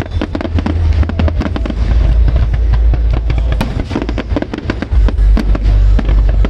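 Fireworks display: a rapid stream of bangs and crackles, over music with a heavy, steady bass.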